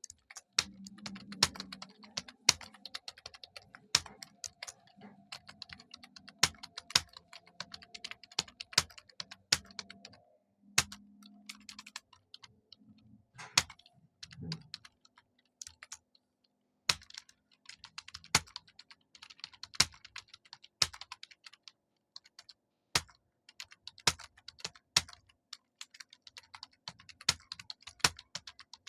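Typing on a computer keyboard: quick runs of keystrokes broken by short pauses, with a louder single key strike about every second.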